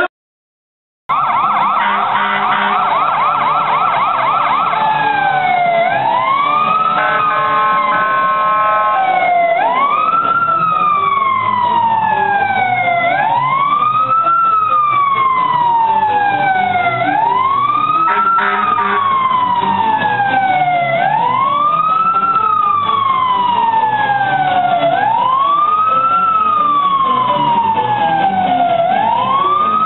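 Fire truck siren sounding up close, first a fast warble and then a slow wail that sweeps up and falls away about every four seconds. A short steady horn-like blast comes partway through, over a low engine rumble.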